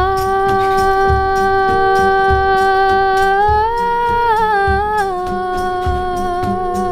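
Group improvisation: singers holding one long note together, joined by a second held note, rising a step partway through and sinking back, over a low beat a little under twice a second.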